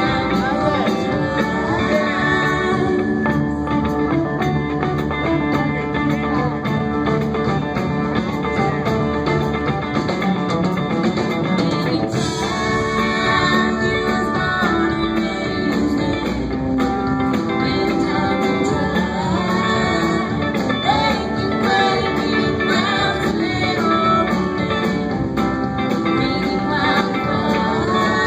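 Live country-rock band playing a song: a woman singing lead over electric guitars and drums.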